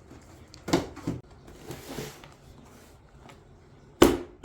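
A package being handled for unboxing: a couple of light knocks and some rustling, then two sharp knocks near the end.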